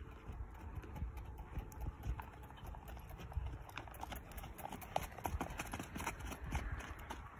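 Hoofbeats of a ridden horse cantering on loose sandy dirt: a run of dull, uneven thuds with some sharper clicks.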